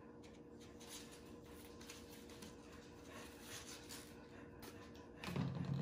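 Faint rustling and scraping of yarn being pulled through the punched holes of a paper plate, in soft irregular strokes. A short, louder low sound comes near the end.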